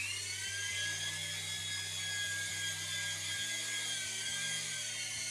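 Toy RC helicopter's small electric rotor motors whining in flight, a high drill-like whine that rises right at the start and then holds fairly steady while it hovers.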